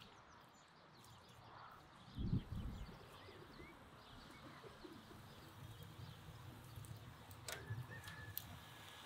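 Faint outdoor background with small birds chirping, and a low muffled thump about two seconds in.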